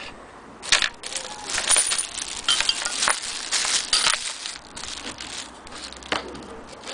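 Thin plastic bag crinkling and rustling as it is crumpled by hand, densest in the first half. There are a couple of sharp knocks, one early and one near the end.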